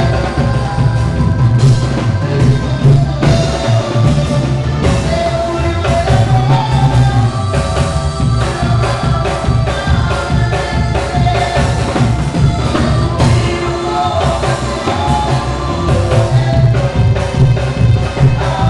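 Live cumbia band playing: electronic keyboards, including a Korg N364, carry the melody over a drum kit and percussion, with a steady dance beat.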